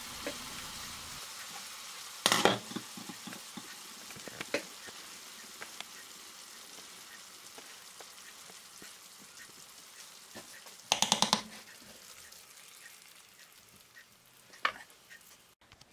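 Sautéed vegetables sizzling in olive oil in a frying pan, the sizzle slowly dying away. A sharp clatter of cookware sounds about two seconds in, and a quick rattle of knocks comes around eleven seconds in.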